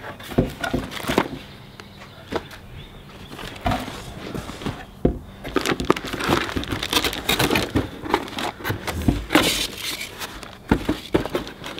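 Cardboard box handled and opened: flaps scraping and knocking. Near the end, a lot of rustling and crinkling as the plastic-wrapped amplifier is slid out of its packaging.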